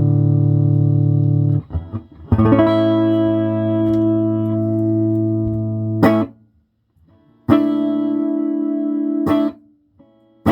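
Electric guitar played through a 1967 Ampeg Portaflex SB12 tube amplifier, plugged into the instrument input at about half volume. Held chords ring for a few seconds each and are stopped short, twice leaving a brief silence.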